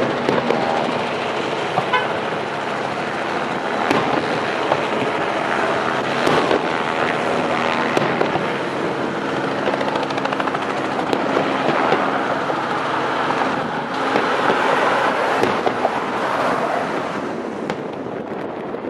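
Aerial fireworks bursting with sharp bangs over a dense, continuous crackle, while several car horns honk and hold long steady notes through it.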